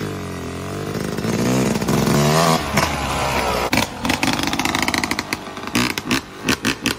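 Lawnmower engine running and revving up and down, then turning choppy and uneven after about four seconds.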